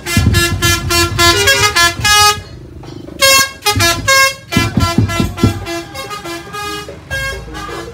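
Madurese ul daul (musik tong-tong) band playing: a loud, horn-like wind melody of held notes and quick runs of changing pitch over heavy drum strokes, with the drums dropping out for a few seconds in the middle.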